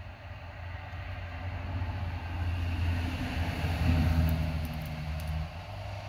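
A motor vehicle driving past: a low engine hum grows louder to a peak about four seconds in, then fades away.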